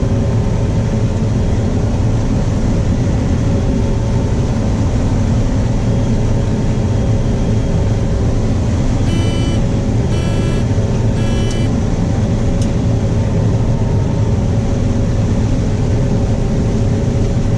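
Combine harvester running steadily while combining corn, heard from inside the cab as a constant drone. About nine seconds in come three short electronic beeps, roughly a second apart.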